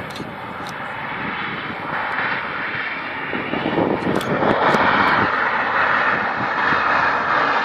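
Airliner jet engines on the runway, a steady rushing engine noise that swells louder over the last few seconds.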